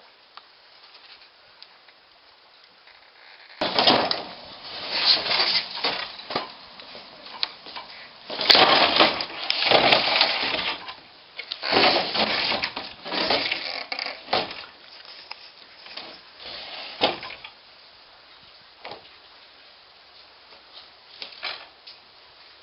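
Irregular scraping, knocking and creaking from about four seconds in, coming in loud bursts until a little after the middle and then dying away: fiberglass boat parts being worked and handled, with someone moving about on the deck.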